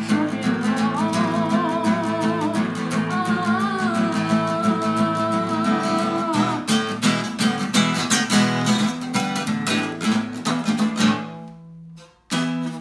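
Acoustic guitar strummed steadily under a long-held, wavering sung note; the voice drops out about halfway, the strumming carries on alone, stops about eleven seconds in, and a single final strum closes the song.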